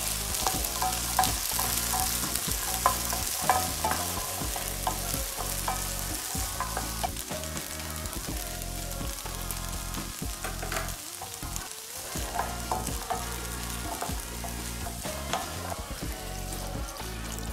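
Beans, red onion and diced tomato sizzling in a hot nonstick frying pan, stirred with a wooden spoon that knocks and scrapes against the pan now and then. A little water is poured into the pan near the end.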